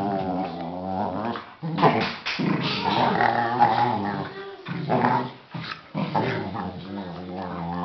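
Two Australian kelpies play-fighting, growling almost continuously with a few short breaks; playful wrestling growls, not aggression.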